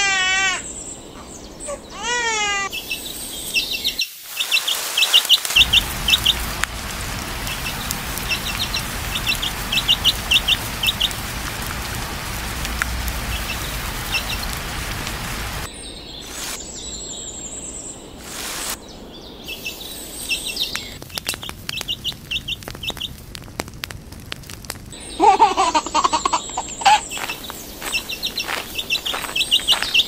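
Sound-effect track of a short AI-animated chick video. It opens with a baby's gliding vocal sounds, then a chick peeps in quick runs of short high chirps over a steady outdoor background hiss. Later come a stretch of light clicks and a short pitched call near the end.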